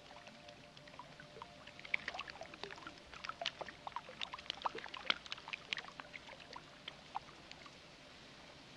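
Faint water drips falling irregularly onto wet concrete and puddles, the last drips as the rain stops. They come thickest from about two to six seconds in and thin out near the end.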